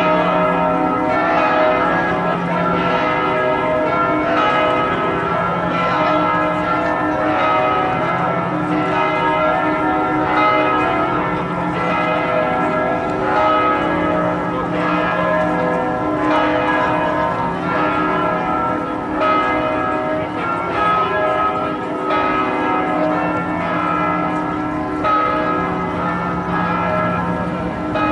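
The church bells of Notre-Dame Basilica pealing: several bells ringing at once in a continuous mass of overlapping tones, with a lower bell coming back roughly every two seconds.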